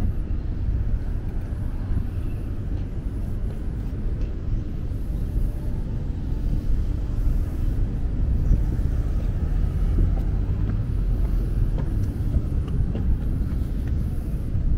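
Outdoor city ambience: a steady low rumble.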